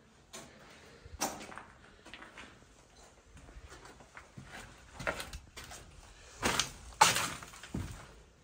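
Footsteps crunching and scraping over broken plaster, glass and debris on the floor: a few scattered crunches, then a cluster of louder ones near the end.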